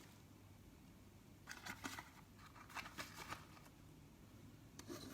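Faint crinkling and clicking of plastic blister packaging being handled and pulled open, in three short bursts about one and a half, three and five seconds in.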